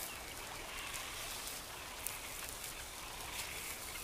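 Quiet natural outdoor ambience: a steady low hiss with a few faint, distant bird calls.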